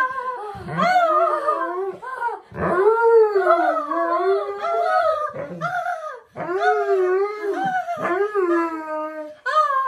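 Alaskan malamute howling and "talking": about six long, wavering calls in a row, each sliding up and down in pitch with short breaks between. It is the dog's vocal reaction to being kissed.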